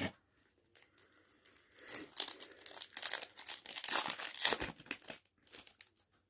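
A Yu-Gi-Oh! booster pack's foil wrapper crinkling and tearing as it is ripped open. The crinkling starts about two seconds in and stops a little after five seconds, after a single click at the start.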